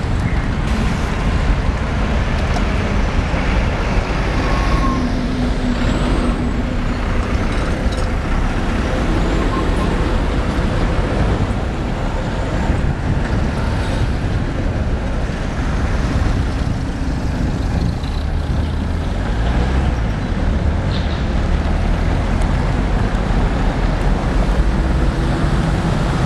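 Steady mixed traffic at a road and tram intersection: an articulated city bus, cars and a tram passing, over a heavy low rumble that never lets up.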